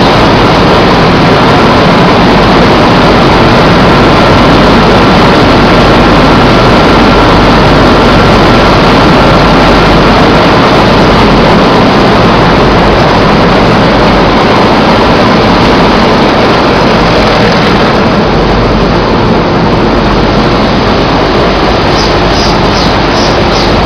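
Loud, steady din of an automatic flour-bagging machine filling a sack at its spout, with the mill machinery running around it. The sound lightens slightly about three-quarters of the way through.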